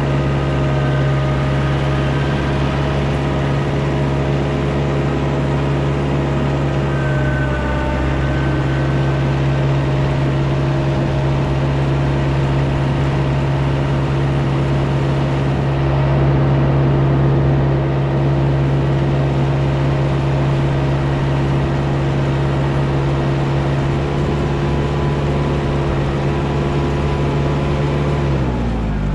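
A 35 hp TYM diesel loader tractor driving in high range on its hydrostatic transmission, the engine running steadily with a constant pitch. Near the end the pitch falls sharply as the tractor slows down.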